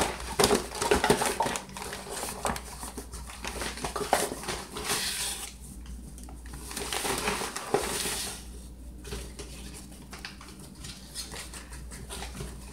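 Kitchen handling noises: scattered light knocks and clicks, then two stretches of rustling and scraping, as a cup of all-purpose flour is being measured out.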